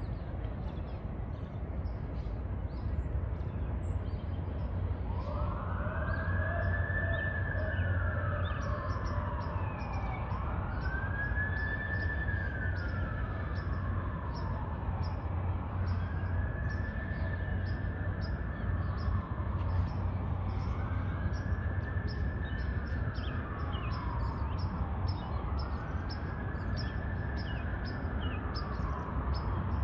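Emergency-vehicle siren wailing, starting about five seconds in. Its pitch climbs quickly and sinks slowly, repeating every four to five seconds, over a steady low city rumble.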